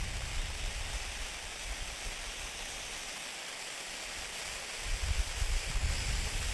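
Gaoo F25 Multicolor firework fountain burning with a steady hiss of spraying sparks. Wind rumbles on the microphone, dies away in the middle and gusts again about five seconds in.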